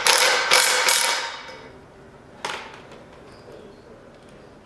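A fastener being driven into the handrail's wall bracket: about four short, harsh rasping strokes in quick succession, then a single sharp click about two and a half seconds in.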